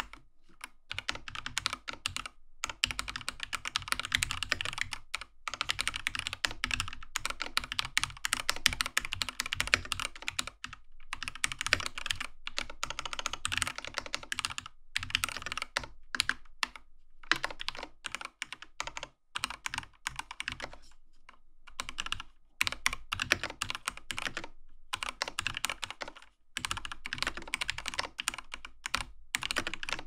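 Typing on an IQUNIX F97 Hitchhiker mechanical keyboard with stock TTC ACE linear switches and PBT KDA-profile keycaps: fast runs of keystroke clacks broken by brief pauses, thinning out for a couple of seconds around twenty seconds in.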